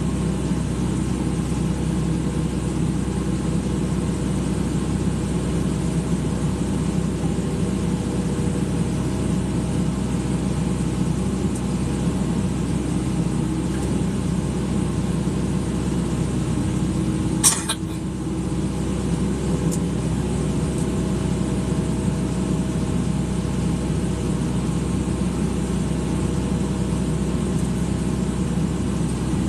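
Excavator's diesel engine running steadily, with a single sharp knock about two-thirds of the way through.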